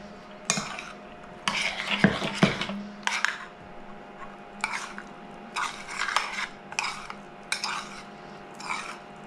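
Metal spoon stirring macaroni into cheese sauce in a stainless steel saucepan: irregular scrapes and clinks of the spoon against the pan.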